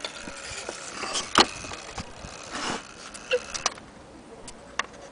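Irregular knocks, clicks and rattles as the wooden case of an antique Black Forest cuckoo mantle clock is handled, with a sharp knock about one and a half seconds in and a short scrape a little past halfway.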